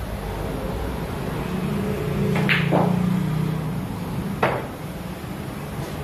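A pool shot: sharp clicks of pool balls being struck, two about a quarter second apart at about two and a half seconds in, then a third click about two seconds later. A low hum swells under the first two clicks.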